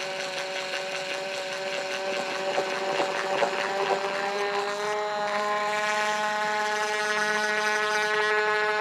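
Power drill motor running steadily with a whine whose pitch creeps slowly upward.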